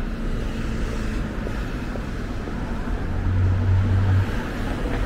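City street traffic: cars running on the road alongside, a steady low rumble. About three seconds in, a deeper low hum swells for about a second.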